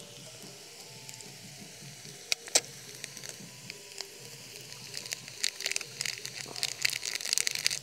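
Ginger-garlic paste spooned into hot oil in a frying pan of eggs and onions on a portable gas stove, frying with a soft sizzle. Two sharp clicks a couple of seconds in, then from about five seconds in a busy crackling spatter that grows denser toward the end.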